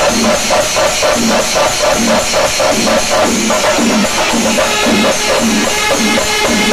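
Pandi melam: a large ensemble of chenda drums beaten with sticks in a fast, driving rhythm, with elathalam cymbals clashing over it. A kuzhal reed pipe comes in with held notes about four seconds in.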